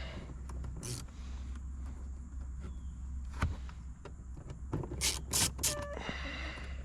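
Plastic interior door trim on a BMW E90 being pried loose: scattered clicks, then a cluster of sharp snaps and scrapes with a brief squeak about five seconds in, over a steady low hum.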